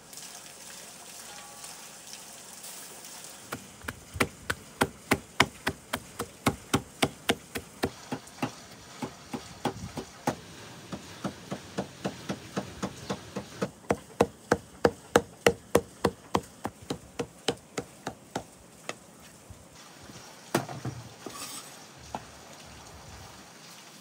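Meat cleaver chopping lamb into mince on a wooden log chopping block: a steady run of strikes, about two or three a second, that stops a few seconds before the end. A single thump follows shortly after.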